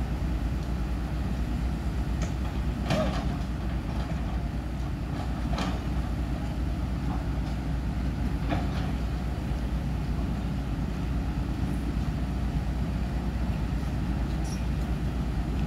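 Diesel engines of the cranes lifting a steel bridge girder running steadily with a low rumble, with a few short knocks from the site about three, five and a half, and eight and a half seconds in.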